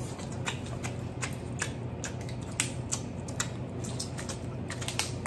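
Rapid, irregular sharp clicks and cracks of crab legs being broken apart and eaten by hand, over a steady low hum.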